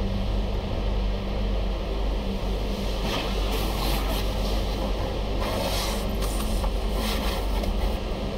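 Car wash machinery running with a steady low hum, and from about three seconds in, irregular hissing bursts as the washing hits the car.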